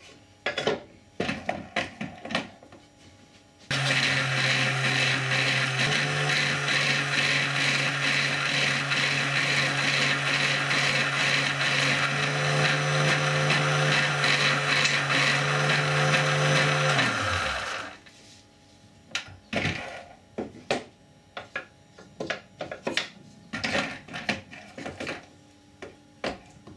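Homemade powered sharpening wheel: a few seconds of clicks and knocks as discs are handled, then the electric motor starts and runs steadily for about 14 seconds with a hiss as a blade is held against the spinning abrasive disc, then is switched off and winds down; more handling clicks follow.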